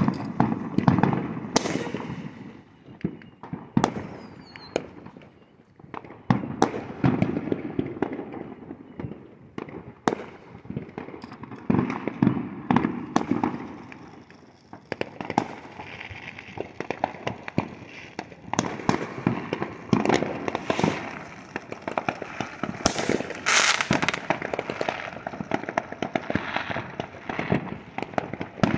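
Many fireworks going off at once in the distance: a dense run of sharp bangs, pops and crackles, often overlapping, with low booming swelling and fading between them.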